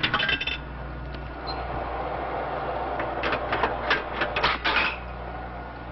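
A steady hiss with clattering mechanical noise, and a quick run of sharp clicks and rattles between about three and five seconds in.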